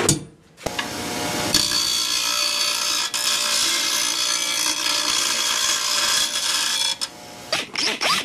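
Angle grinder spinning up about a second in, then cutting into a metal bracket with a steady harsh hiss, stopping near the end; a few short clicks follow.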